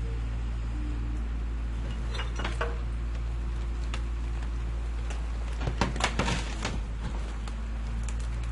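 Garbage truck engine idling with a steady low rumble, overlaid by metal knocks and rattles from a garbage container being handled: a few clatters about two seconds in and a louder burst of clanking around six seconds in.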